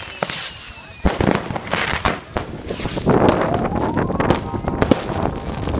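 New Year's fireworks and firecrackers going off: a dense string of sharp bangs and crackles, with high whistles sliding down in the first second and a rising whistle about three seconds in.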